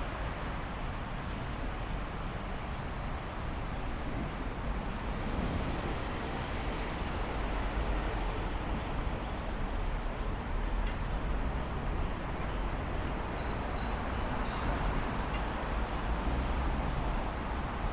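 Outdoor city ambience: a steady low rumble of traffic. Over it comes a regular high-pitched ticking, about two ticks a second.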